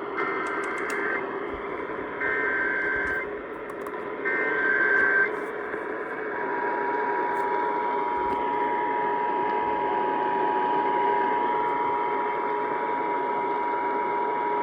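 Emergency Alert System broadcast: three one-second bursts of SAME header data tones, about two seconds apart. About six seconds in, the steady EAS two-tone attention signal (853 and 960 Hz) begins. It is received over AM radio, with static and hum underneath.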